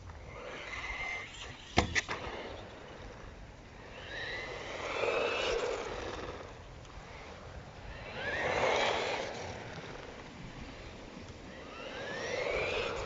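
Wltoys L969 RC buggy's brushed electric motor whining up in pitch as the car accelerates, four times in succession, with a pair of sharp knocks about two seconds in. Wind rumbles on the microphone.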